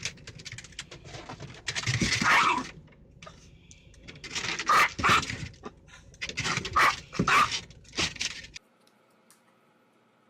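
A dog vocalizing in a series of short, loud calls, about five in all, arriving in pairs, that break off suddenly over a second before the end.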